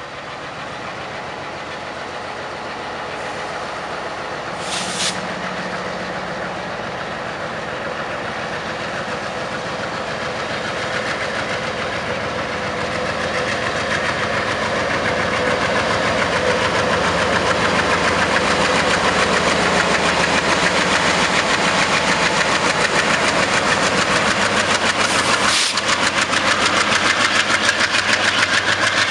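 MLW MX627 diesel-electric locomotive working hard as it hauls a train of tank wagons, its diesel engine running steadily and growing louder as it approaches and passes. Brief high squeals come about five seconds in and again near the end.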